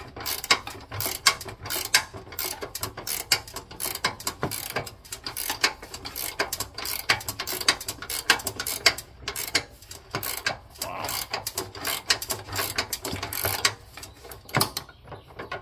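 A 9/16 ratcheting wrench clicking rapidly in short runs of strokes as it turns a seat-mounting bolt under a lawn tractor seat.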